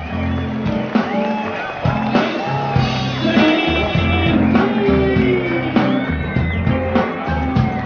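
Music with a stepping bass line under a wavering lead melody, with some singing.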